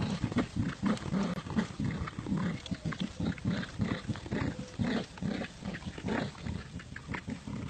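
Dogs growling in play during a tug-of-war over a toy: an uneven run of many short growls.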